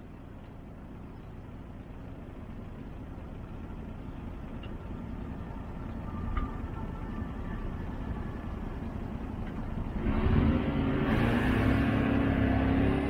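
Alstom Citadis 405 tram approaching, its running noise growing steadily louder. From about ten seconds in it is loudest, with the whine of its traction motors.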